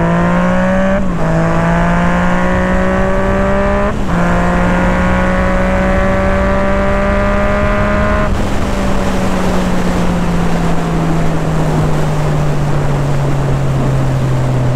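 Yamaha MT-09's inline-three engine accelerating hard, its note climbing and dropping sharply at two quick upshifts, about a second in and about four seconds in. After about eight seconds the throttle eases and the engine note slowly sinks under heavy wind rush.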